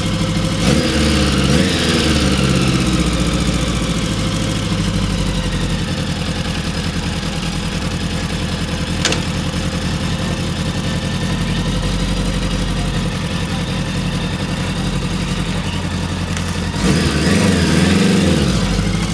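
Honda GL1000 Gold Wing's flat-four engine idling steadily, blipped up in revs and back down twice: once about a second in and again near the end.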